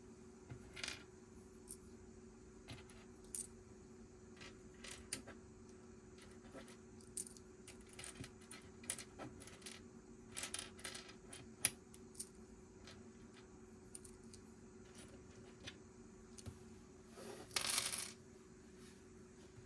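Plastic Lego pieces clicking and clattering as they are handled and snapped together, with a louder rattle of pieces sorted or shaken together near the end, over a faint steady low hum.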